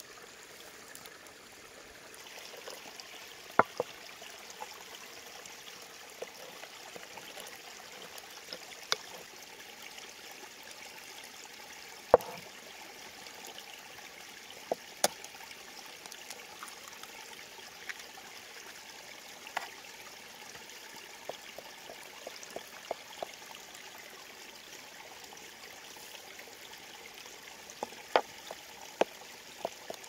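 Faint steady trickle of flowing water, with scattered sharp taps and clicks of a wooden spoon and utensils against a glass bowl.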